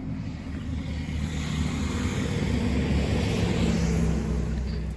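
A truck driving past: its engine runs low and steady while the tyre and road noise swells to a peak mid-way and fades towards the end.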